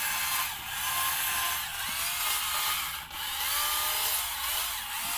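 Battery-powered Stihl chainsaw running and cutting into a wooden log, its motor pitch rising and falling as it cuts, with a brief dip about three seconds in.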